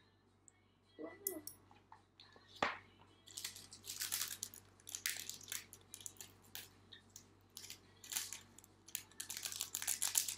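A small plastic seasoning sachet crinkling as it is torn open and squeezed out, in a dense run of quick, bright crackles. Earlier a single sharp knock sounds about two and a half seconds in.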